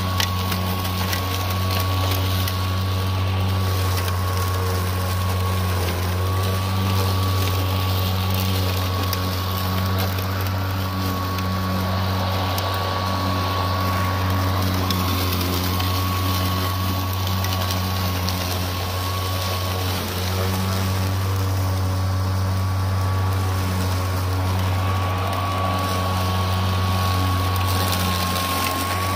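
Greenworks Pro 60-volt brushless 21-inch cordless lawn mower running steadily while cutting tall, thick grass and weeds. A low hum from the spinning blade sits under a steady high whine from the electric motor.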